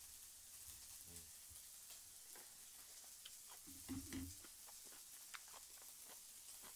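Faint sizzling of pork jowl slices on a grill pan: a steady soft hiss with scattered small pops. About four seconds in there is a brief low mouth sound from the eater.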